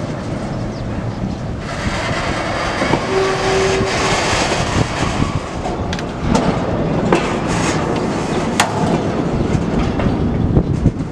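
Freight wagons, a tank car and empty container flatcars, rolling slowly past on the rails. The wheels clatter over the track with scattered sharp metallic knocks, more frequent in the second half.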